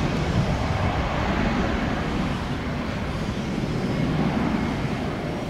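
Jet airliner passing at the airport, its engines a steady rushing noise heavy in the low end that slowly fades.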